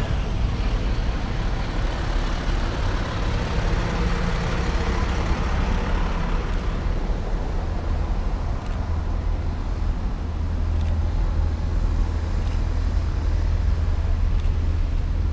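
Fire engine driving slowly past, its engine noise fading out about six seconds in, followed by police patrol SUVs rolling by, over a steady low rumble.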